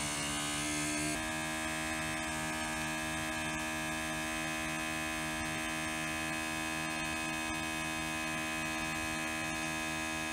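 Electric vacuum pump running with a steady hum, pulling a vacuum on a filter flask during vacuum filtration. Its tone shifts slightly about a second in, then holds steady.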